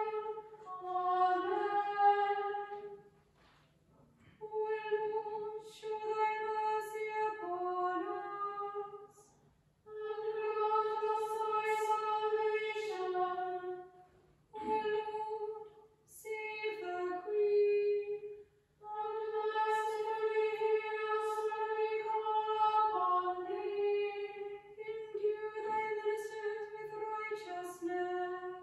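A small choir of women's voices singing unaccompanied: about six phrases, each a long held note that moves to other notes near its end, separated by short pauses for breath.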